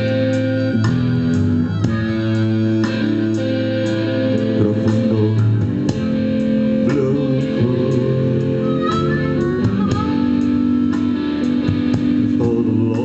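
Blues band playing an instrumental passage with no singing: guitar over bass and a steady drum beat.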